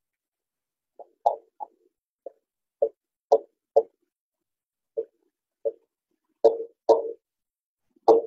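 Marker writing on a whiteboard: about a dozen short, separate scrapes and taps at irregular intervals.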